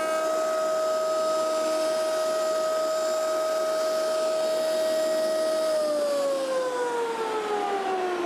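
Router table motor running with a steady high whine. About six seconds in it is switched off, and the whine falls steadily in pitch as the bit spins down.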